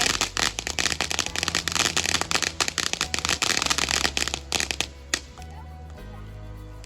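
Fireworks crackling: a dense run of rapid pops and snaps that stops about five seconds in with one last sharp crack. Background music plays throughout.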